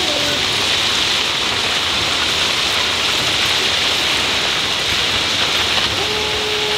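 Crushed-rock ballast pouring out of the hopper chutes of a slowly moving ballast train onto the track: a steady hiss and rattle of falling stones.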